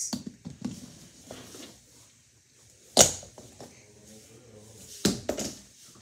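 A few sharp knocks and thuds from objects being handled and set down. The loudest comes about three seconds in and two more come close together near the end, with quiet room sound between.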